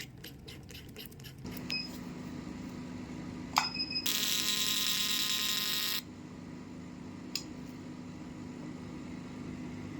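An electronic beep, then a click with another beep, then a harsh buzzer sounding for about two seconds, over a steady low hum that starts about a second and a half in.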